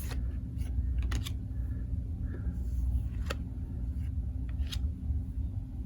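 Trading cards being handled and flipped through: scattered light clicks and taps over a steady low hum.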